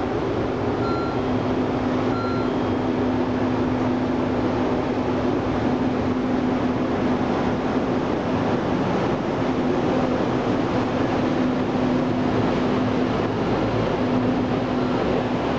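JR EF65 electric locomotive slowly hauling a rake of new Keikyu New 1000 series cars past, a steady low hum over the rumble of the train rolling on the track.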